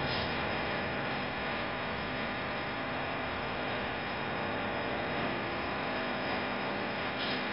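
Electric potter's wheel running, a steady hum with an even hiss while clay is shaped on it.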